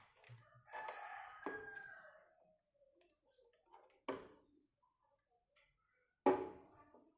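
A rooster crowing once, starting about a second in and dropping in pitch as it ends. Two sharp knocks follow later, one near the middle and one near the end.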